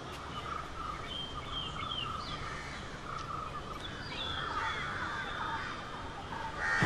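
Outdoor background noise with birds chirping and calling now and then over a steady hiss.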